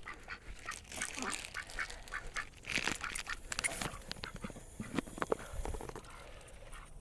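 Blue Swedish ducks eating peas, an irregular run of quick bill clicks and slurps with a few short soft quacks.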